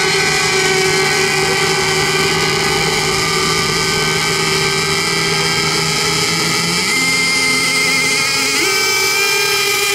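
Several radio-controlled racing boats running at speed, their motors blending into a steady high-pitched buzz of overlapping tones. Some of the tones shift in pitch about seven and nine seconds in.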